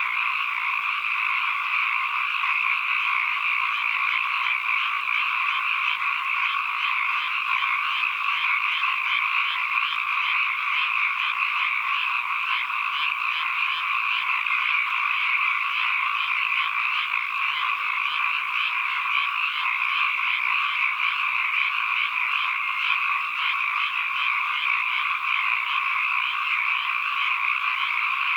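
A dense chorus of many frogs calling at once, their calls overlapping into a steady, unbroken din.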